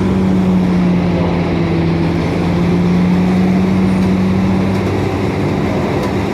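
Cabin sound of a 2004 Orion VII diesel-electric hybrid transit bus running: a steady drivetrain drone with a strong constant hum over road rumble.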